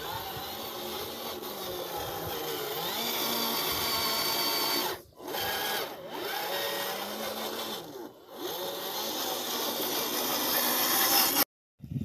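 Electric drive motor and gearbox of a radio-controlled dump truck whining as it drives, the pitch rising and falling with the throttle. It stops briefly three times.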